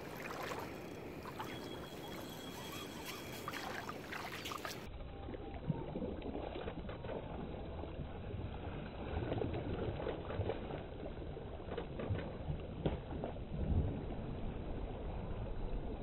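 Steady low rumble of wind and water, with a few faint knocks and splashes.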